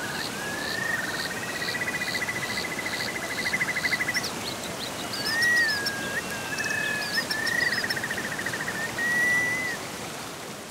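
Running stream water with birds calling over it: a short high chirp repeated about twice a second and a long trilling call in the first four seconds, then several shorter gliding, whistled calls.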